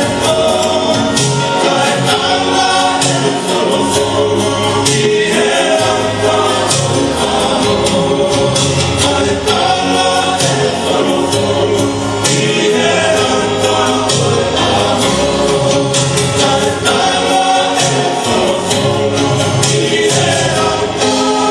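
A choir of voices singing a Tongan song in harmony, the music for a group dance, with short sharp accents running through it.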